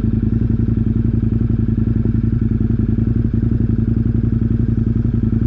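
KTM motorcycle engine idling steadily, with an even, rapid pulse and no change in revs.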